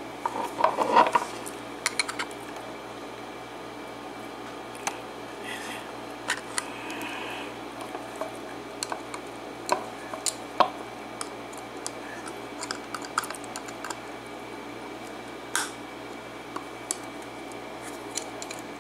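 Small metal clicks, taps and scrapes of a tool working the retaining clip off the back of a lock cylinder, irregular and scattered, with a cluster of louder clicks about a second in.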